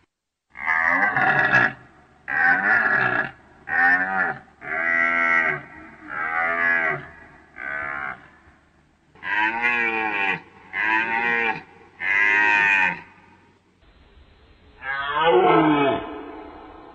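Fallow deer buck giving its rutting call, the short deep groan: nine calls of about a second each in quick series, then after a short break one longer call.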